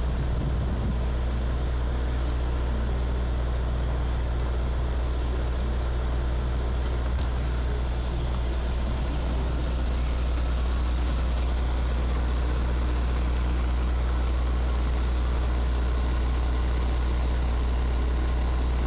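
A vehicle engine idling: a steady low hum that holds unchanged throughout, with a faint brief hiss about seven seconds in.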